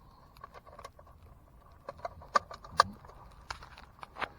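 Scattered sharp clicks and small knocks of a 120 film spool and metal camera parts being handled and fitted into an old Ensign medium-format camera, the loudest two a little over two seconds in and just before three seconds.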